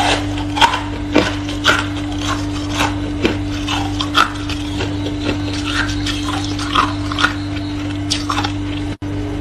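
Scattered crisp crackles and crunches of freezer frost, irregular and a second or so apart, over a steady low hum.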